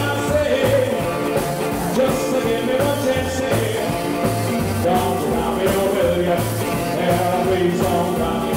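Live 1950s-style rock 'n' roll band playing: electric guitar, bass guitar and drum kit over a steady beat with a repeating bass line.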